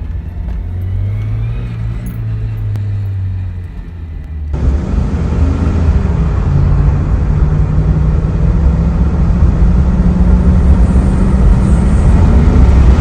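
A car idling and revving with a high-pitched whine from its automatic transmission that rises with engine speed. This whine is usually from the oil pump or planetary gears starved of fluid by low oil or a dirty filter. About four seconds in the recording cuts to a second, louder example of the same kind.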